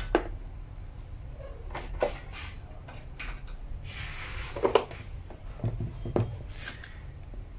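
Scattered light knocks and clicks as a power tool's plug and cord are handled against a table, spaced a second or two apart, with a brief rustle about four seconds in. The drill's motor is not yet running.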